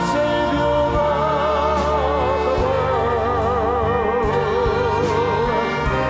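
Choir singing long held notes with vibrato over instrumental accompaniment, with a steady low bass underneath and a few light percussive strokes.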